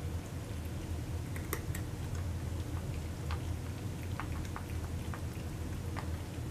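Cats chewing raw meat nuggets from a shared platter. Scattered small, sharp clicks and crackles of eating sound over a steady low hum.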